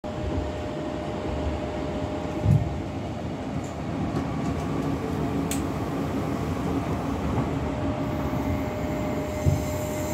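Passenger train running, heard from inside the carriage: a steady rumble with a faint steady tone and two short low thumps, about two and a half seconds and nine and a half seconds in.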